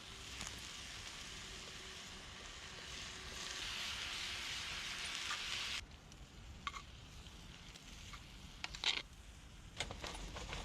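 Food sizzling as it cooks over a campfire. The hiss swells, then cuts off abruptly a little past halfway, followed by a few light clicks and knocks.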